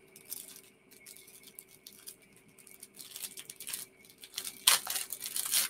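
Rustling and crinkling of packaging being handled: soft scratchy rustles, sparse at first and busier in the second half, with a louder crackle near the end.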